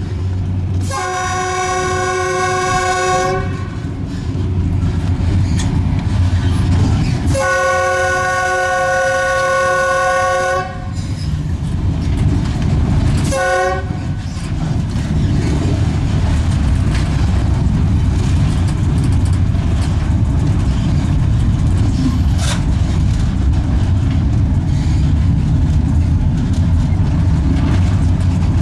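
East German-built EL2 electric locomotive sounding its horn: two long blasts of two to three seconds each, a few seconds apart, then a short toot, as it nears a level crossing. Under it, the steady low rumble of the locomotive running along the track.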